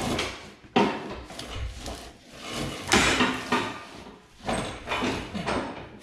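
Repeated scraping and rubbing strokes, about six of them, each starting sharply and fading within half a second or so.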